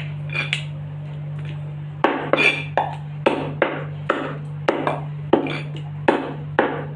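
Butcher's cleaver chopping a whole chicken on a chopping block: a few sharp chops in the first two seconds, then steady chops about two to three a second, each with a short ring. A constant low hum runs underneath.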